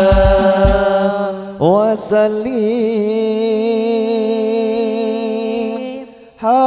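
Hadroh sholawat singing: a male voice holds long, wavering notes on 'Allah' and 'wa sallam'. A few deep hand-drum strokes sound under the first second, then the drums stop and the voice carries on alone.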